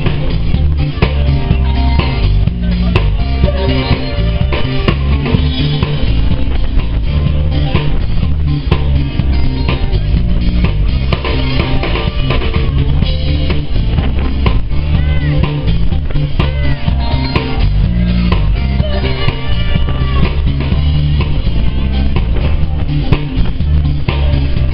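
A disco band playing live, with drum kit, bass and guitar on a steady beat.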